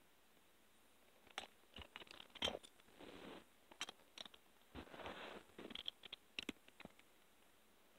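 A small LEGO car being handled and taken apart: scattered sharp plastic clicks and snaps of bricks, with two short rustles against the fabric, starting about a second in.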